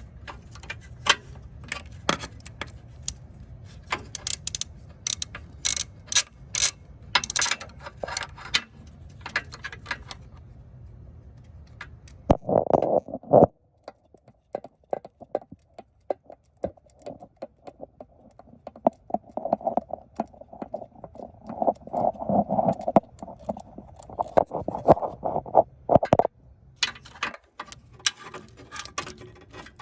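Hand ratchet clicking in short runs as bolts are backed out of the Honda Civic's water pump and pulley, with metallic clinks and rattling between runs.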